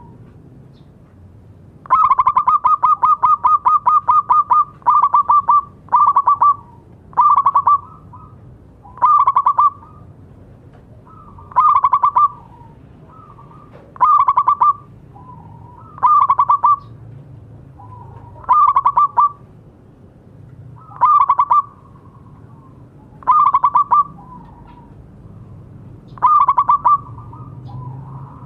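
Zebra dove (perkutut) singing its staccato cooing song: a long run of rapid coo notes about two seconds in, then about a dozen short bursts of quick notes repeated every two seconds or so.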